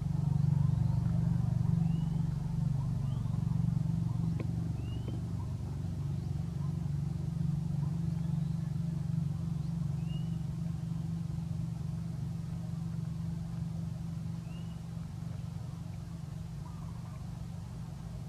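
A steady low motor hum that slowly fades, with short high chirps every couple of seconds over it.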